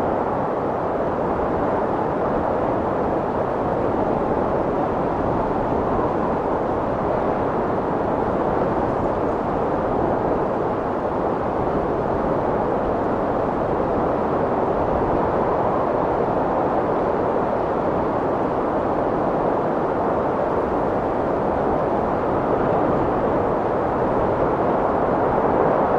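Strong wind blowing steadily: a continuous rushing noise without gusts or breaks.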